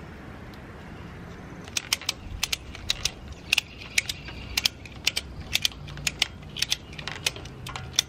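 Ratchet strap being cranked tight by hand, its ratchet clicking in quick, uneven strokes of two or three clicks a second, starting about two seconds in.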